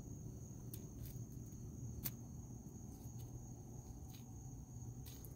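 Crickets trilling steadily in one continuous high-pitched tone over a low steady hum, with a few faint sharp clicks scattered through, the clearest about two seconds in.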